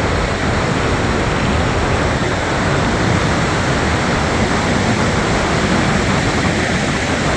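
Steady rushing of wind and surf on an open beach, a loud, even noise with no breaks.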